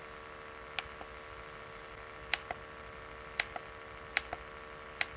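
Plastic keypad buttons on a handheld formaldehyde gas detector clicking as they are pressed, about five presses, most heard as a quick double click of press and release, over a faint steady hum.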